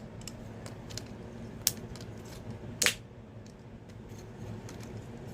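Plastic Lego butterfly knife clicking and clacking as its handles are flipped around in a trick, a scatter of light clicks with two louder clacks about a second and a half and three seconds in.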